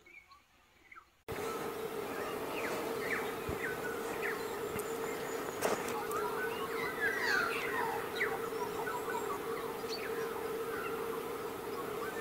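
Several birds chirping and whistling in quick short calls over a steady hum and hiss, which come in abruptly about a second in.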